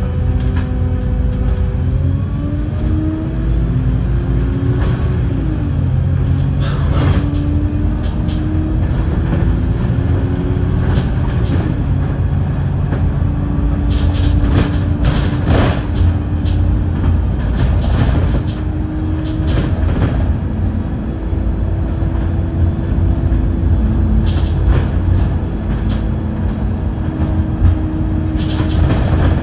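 Wright StreetLite bus under way, its drivetrain whine rising as it pulls away and dropping at each of two gear changes, then holding steady as it cruises. Under it runs a heavy road rumble, with occasional sharp knocks and rattles.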